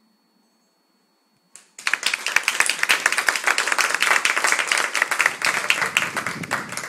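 People applauding with many quick, separate hand claps, starting about two seconds in after a short silence as a small ensemble piece ends.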